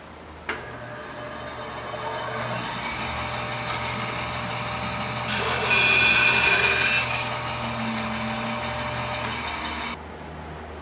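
A workshop power tool starts with a click and runs steadily. It gets louder for a second or two in the middle as it cuts into a wooden pen blank, then stops abruptly near the end.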